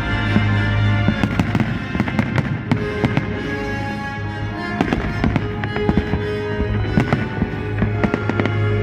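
Fireworks salute going off in many quick, irregular bangs and crackles, over music with long held notes.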